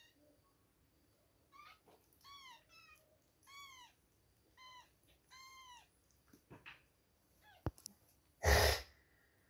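Two-week-old kittens mewing: about six short, high calls, each rising and falling in pitch, in the first six seconds. A sharp click and then a brief loud noise follow near the end.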